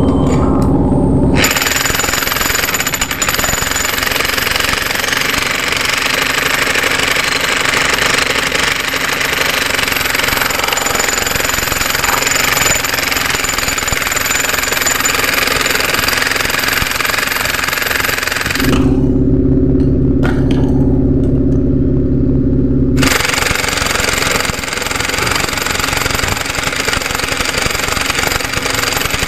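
Handheld jackhammer chiselling very hard concrete on a rebar-studded bridge column, a loud steady rattle. Just past the middle it gives way for about four seconds to a low steady hum, then the hammering resumes.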